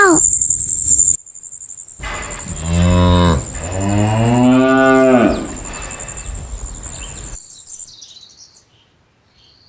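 A cow mooing twice: two long low moos, the second rising and then falling in pitch.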